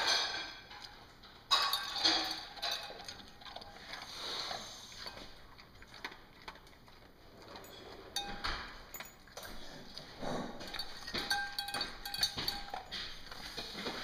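Pointer mix dog at its metal food bowl, making a series of short, sudden noisy sounds, the loudest about one and a half seconds in. The bowl clinks and rings briefly a few times in the second half.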